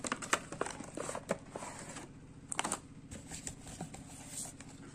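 Clear plastic blister packaging and its cardboard box being handled by hand as a tape tab is peeled off and the tray is opened: irregular plastic clicks, crackles and rustles, the sharpest one about two and a half seconds in.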